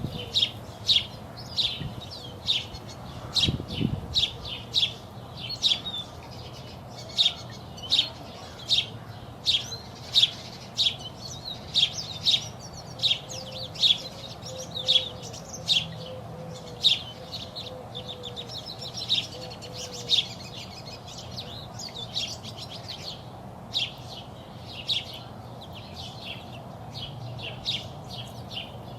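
Small songbirds chirping: short, sharp repeated chirps, roughly one to two a second, over a steady low background.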